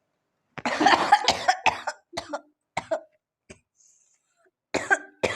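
A person coughing: a quick run of coughs about half a second in, then single coughs at spaced intervals. The coughing comes from sniffing red chilli powder, which brings on coughs instead of a sneeze.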